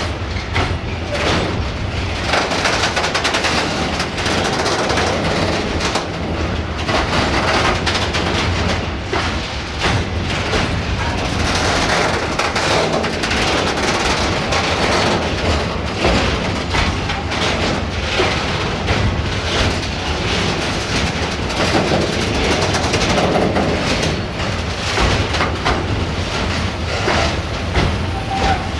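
Freight train of sliding-wall covered wagons rolling past, a steady rumble with the wheels clacking over the rail joints.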